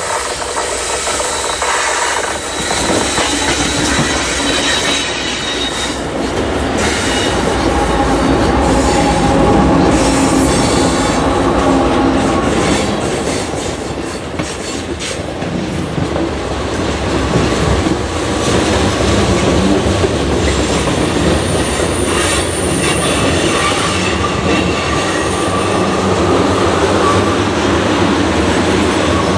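A heavy freight train passes close by. Its diesel locomotives come past in the first seconds, then a long string of covered hoppers and tank cars rolls by with a steady rumble of wheels on rail. Thin, high wheel squeal rises and fades as the cars take the curve.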